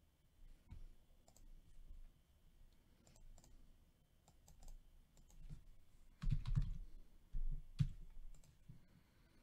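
Scattered clicks and taps of a computer keyboard and mouse being used, with a louder run of taps about six seconds in.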